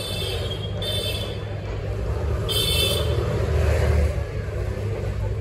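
Road traffic running close by, a vehicle's low rumble swelling about four seconds in. Two brief high-pitched sounds come about a second and two and a half seconds in.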